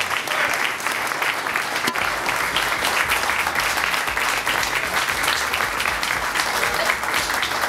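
Audience applauding: many hands clapping at once, a steady stream of claps.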